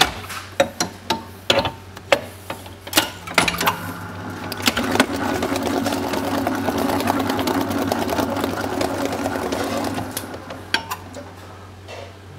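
Commercial stand mixer with a wire safety guard: metal clanks and knocks as the steel bowl is fitted and the guard closed, then the motor running steadily with the paddle beating the egg-rich choux paste. The running dies down about ten seconds in, followed by a few clicks.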